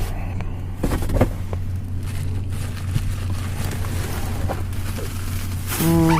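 A few knocks and rustles of food packages being handled in a dumpster, over the steady low drone of an idling vehicle engine. A short pitched hum comes near the end.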